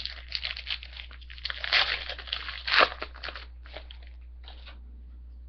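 A trading card pack wrapper being torn open and crinkled, in irregular bursts of rustling that stop about five seconds in.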